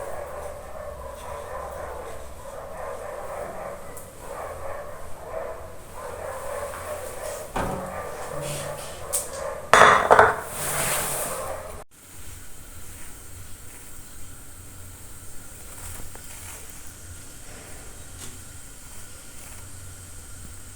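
Kitchen utensils clattering against pots and pans while cooking, with a loud burst of clatter about ten seconds in. The sound cuts off suddenly soon after, leaving only scattered light clinks.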